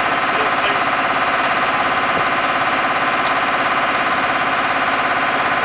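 An engine running steadily at a constant speed, with a fast, even pulsing throughout.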